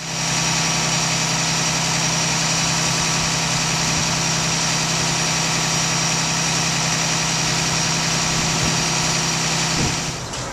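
Blue Bird school bus engine idling steadily: a low, even drone with a thin, steady high whine over it. It drops away near the end.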